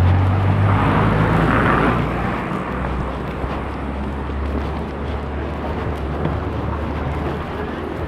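Street traffic: a motor vehicle's engine hums loudly as it passes close by, fading about two seconds in and leaving a steady low traffic rumble.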